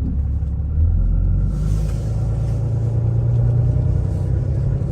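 Car engine hum and road noise heard from inside a moving vehicle, steady throughout.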